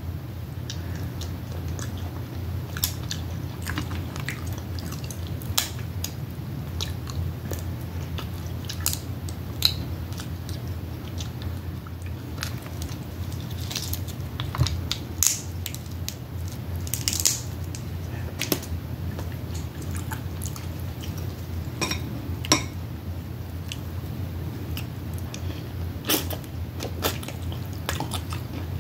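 Close-miked eating of snow crab and Dungeness crab: wet chewing and mouth smacking, with scattered sharp clicks and crackles throughout. A steady low hum sits underneath.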